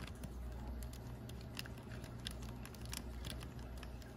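Faint, scattered small clicks of wire cutters and plastic toy parts being handled as the cutters are set against the i-Dog's broken head spring, over a low steady hum.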